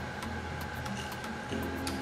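Fairly quiet background with a steady low hum and a few faint light ticks.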